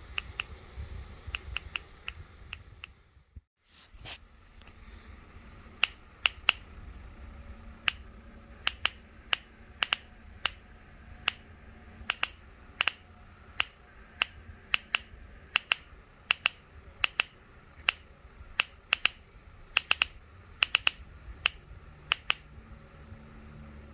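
High-voltage spark snapping across the gap of an inline spark tester, fired by an old Mercury outboard ignition's coil and distributor trigger through a switch box. It comes as sharp, irregular clicks, about two a second, after a short break about three seconds in. The spark shows that the distributor's trigger works.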